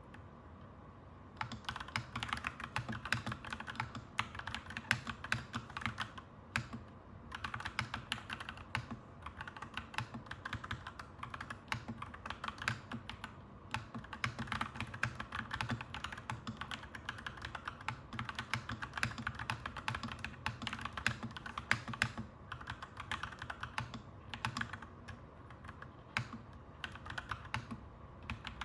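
Clacky mechanical keyboard typing: dense runs of keystrokes that start about a second and a half in, broken by a few short pauses, over a steady low background hum.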